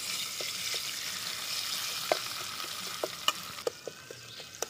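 Ground garlic-and-ginger spice paste sizzling in hot oil in an aluminium kadai, stirred with a metal spatula that taps and scrapes against the pan about seven times. The sizzle dies down near the end.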